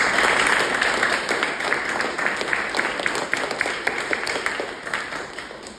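Audience applauding, a dense clatter of clapping that is loudest at the start, then thins out and fades away toward the end.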